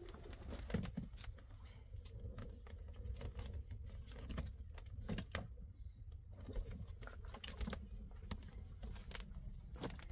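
A run of irregular light clicks and taps over a steady low rumble.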